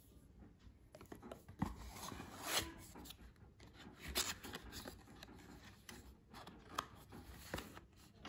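Faint rustling and scraping of a cardboard medicine carton and paper leaflet being handled, with a few short clicks.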